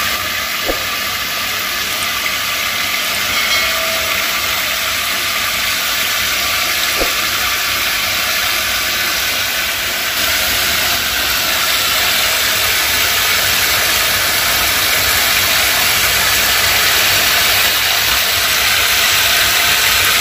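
Hot water spraying steadily from a pull-down kitchen faucet's spray head into a stainless steel sink basin and running toward the drain, a steady hiss and patter that grows a little louder about halfway through.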